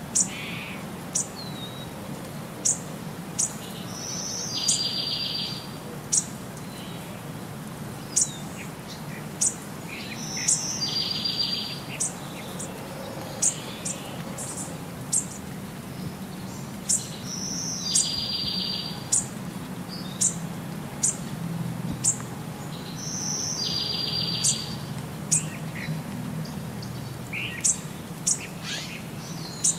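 Birds chirping: short high chirps and a rapid trill that come back in the same pattern about every six and a half seconds, as in a looped birdsong track. A low steady hum runs underneath.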